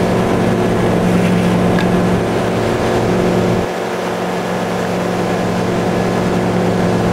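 Ski tow boat's engine running steady at slalom towing speed, heard from on board over the rush of water and wind. About halfway through, the low end of the drone briefly drops away and the level dips, then it returns.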